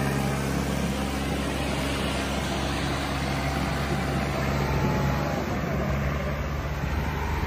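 Diesel tractor engines running hard under heavy pulling load in a tractor tug-of-war, a steady deep drone that turns rougher and less even about two-thirds of the way through.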